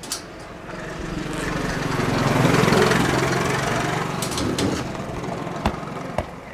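Small motor scooter engine running as it approaches along the lane, growing louder to a peak about halfway through and then easing off. A couple of sharp knocks sound near the end.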